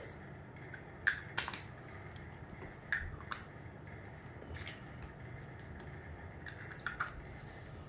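Small plastic toy food pieces clicking and clacking as they are picked up and set down on a toy kitchen stand: a scattering of sharp clicks, some in quick pairs, with quiet between them.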